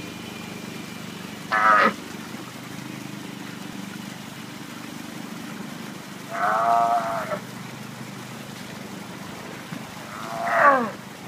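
Male sea lion calling three times: a short call about a second and a half in, a longer call of about a second near the middle, and a last call that falls in pitch near the end. The uploader puts the calling down to the animal being in heat.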